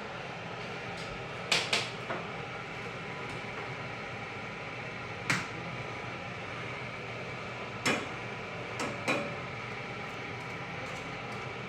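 Scattered sharp knocks and clacks of kitchenware being handled, about seven in all, several coming in quick pairs, over a steady background hum.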